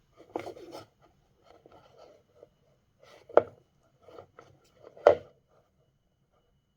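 Box and packaging being handled with one hand: intermittent scraping and rustling, broken by two sharp knocks about a second and a half apart, the second one about five seconds in.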